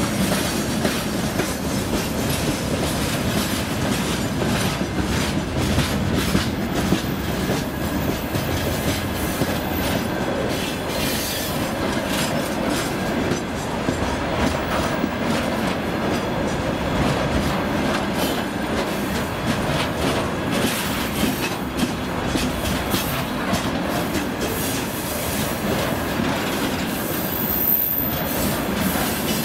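Freight train wagons rolling past: a steady rumble of steel wheels on the rails, with continual clacking as the wheelsets cross rail joints.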